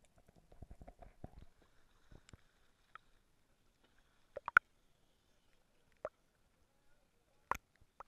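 Muffled underwater crackling picked up by a camera in a waterproof housing, then a few sharp slaps of water against the housing as it rides at the surface: a pair about halfway through, one more a little later and another near the end.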